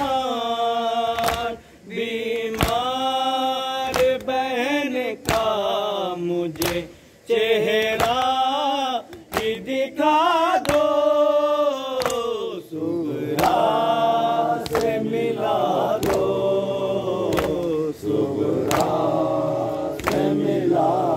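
Men chanting a Muharram nauha (mourning lament) in time with chest-beating matam: a sharp hand slap lands on the beat about every 1.3 seconds. A single voice leads at first, and from about halfway the group sings together in a denser chorus.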